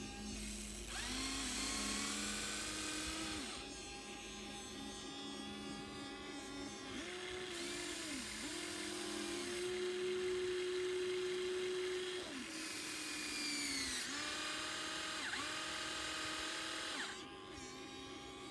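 Radio-controlled model excavator's electric motors whining in several spells of a few seconds each, the pitch rising and falling as the machine moves, over a steady hum.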